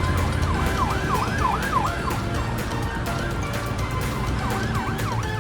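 Emergency-vehicle siren sound effect in a fast yelp, its pitch sweeping up and down about four times a second, breaking off briefly about halfway through and then resuming, over background music.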